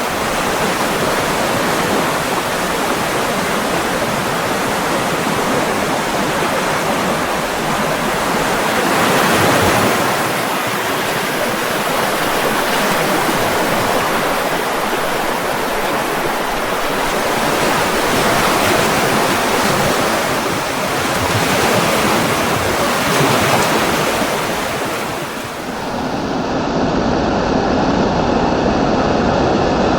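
Steady rushing water that swells and eases every few seconds. About four seconds before the end, it gives way to a duller, lower, steady rumble.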